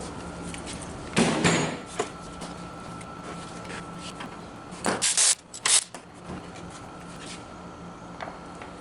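Hand tools and car parts being handled during work on the front end: a scrape about a second in, a light tap at two seconds, then a cluster of louder clattering knocks around five seconds. A steady low hum runs underneath.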